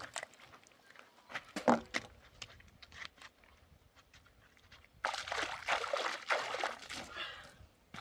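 Water splashing by hand at a hose-fed trough and sandals scuffing on dry, stony ground, with a sharp knock about a second and a half in and a louder spell of splashing from about five to seven seconds in.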